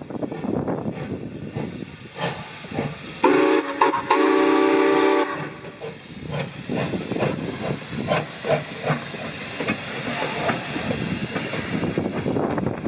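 RX-class steam locomotive sounding its whistle, a short blast then a longer one of about a second, over the hiss and chuffing of steam exhaust.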